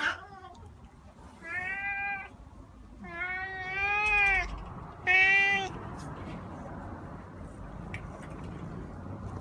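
Domestic cat meowing three times. The middle meow is the longest, rising and then falling in pitch, and the last is short and the loudest.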